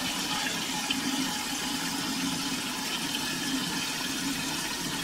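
Water running steadily into the concealed cistern of a Cersanit wall-hung toilet through its inlet fill valve as the tank fills, with the float rising toward shut-off. The valve has just been cleared of dirt that had kept it from closing.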